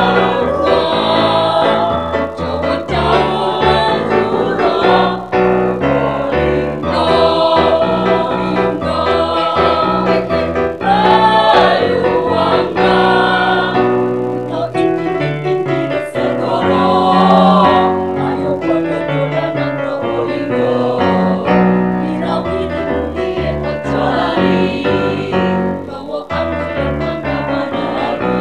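A children's choir singing in unison with keyboard accompaniment.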